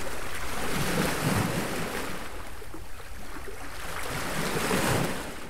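Ocean surf washing up on a sandy beach: a steady rush of breaking waves that swells and eases, dying away near the end.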